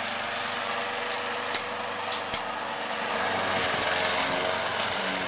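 Walk-behind gasoline lawn mower engine running steadily while mowing, getting louder about three and a half seconds in as the mower comes closer. Three sharp clicks sound about a second and a half to two and a half seconds in.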